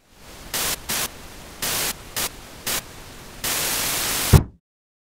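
Old television's static hiss, swelling five times in short loud bursts and then in one longer burst. It ends in a single thump as a fist bangs the set, and the static cuts off.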